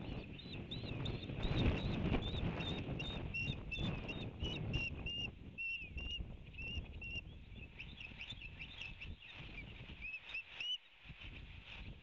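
Osprey calling a rapid series of short, high whistled chirps, about three a second, which stop near the end. Under them is wind rumbling on the microphone, heavier in the first half.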